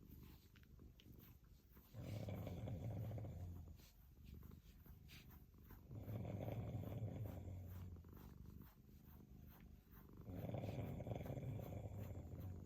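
A sleeping person snoring: three long, low snores, each about two seconds long, coming about every four seconds.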